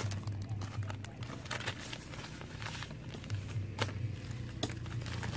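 Hands sprinkling and rubbing coarse seasoning over a raw whole chicken in a plastic bowl: scattered light clicks and crackles, over a steady low hum.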